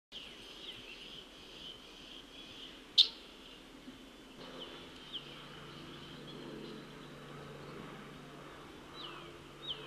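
Wild songbirds calling outdoors at a pond: many short, high, downward-slurred chirps. One sharp click about three seconds in is the loudest sound, and a faint low steady hum sets in about halfway.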